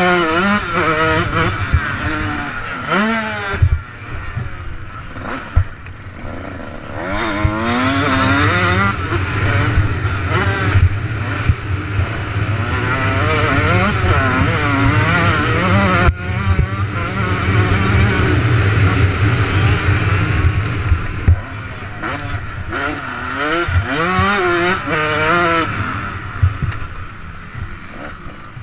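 Motocross bike engine heard close up from on the bike, revving hard and dropping back again and again as the rider works the throttle and gears round a dirt track. Heavy wind buffets the microphone, with occasional sharp thumps.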